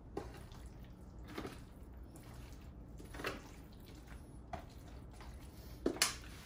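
Sauce-coated brisket burnt ends being tossed by hand in an aluminium foil pan: short, wet squelches, about six of them spaced a second or so apart, the loudest two in quick succession near the end.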